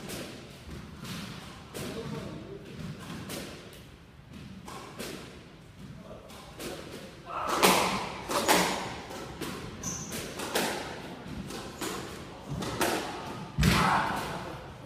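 Squash rally: the ball cracking off the rackets and smacking against the court walls, a string of sharp hits that echo in the court, the loudest coming about halfway through and near the end.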